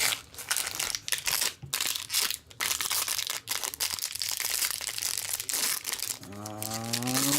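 Plastic wrapping crinkling and being torn off a trading card hobby box, a dense run of irregular crackles. A voice starts in near the end.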